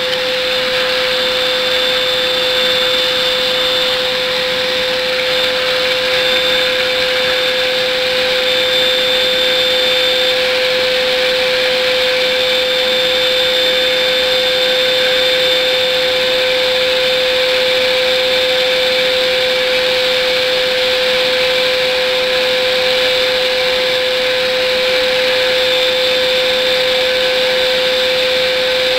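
A vacuum cleaner running steadily with a constant whine over rushing air, its suction driving a Lego Scotch yoke vacuum engine.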